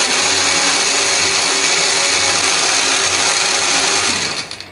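Countertop blender running at full speed, grinding shallots, garlic, candlenuts and peppercorns with a little liquid into a spice paste. Near the end the motor winds down and stops.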